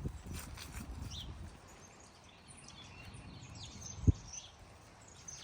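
Walking footsteps in the first second or so, then small birds chirping with many short high calls through the second half. A single sharp thump about four seconds in is the loudest sound.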